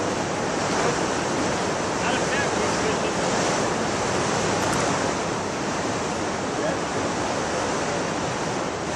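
Steady rush of turbulent river water churning below a dam, with wind on the microphone.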